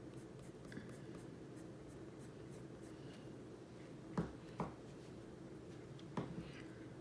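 Colored pencil scratching lightly on paper in quick short strokes, with three sharper ticks about four seconds in and near the end.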